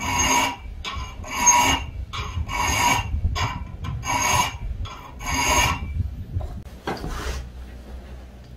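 Hand file scraping across the edge of a steel knife blade in six separate strokes, about one every second and a bit, the last one fainter.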